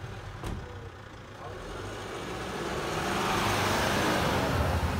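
Police car driving up over cobblestones, its tyre noise and engine rumble growing louder, loudest about three to four seconds in.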